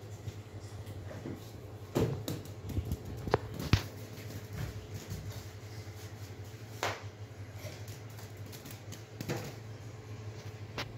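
Scattered light taps and knocks, a few louder ones about 2, 4 and 7 seconds in, over a steady low hum.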